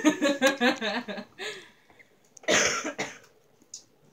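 A woman laughing in a quick run of bursts, then a single harsh cough about two and a half seconds in.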